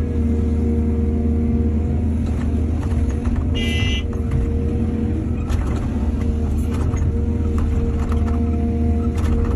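Heavy diesel machinery of an excavator loading trucks, running steadily, with scattered clanks and a brief high squeal about three and a half seconds in.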